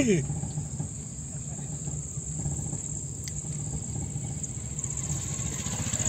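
Steady high-pitched chorus of insects, typical of crickets, with a car's engine running low and steady underneath.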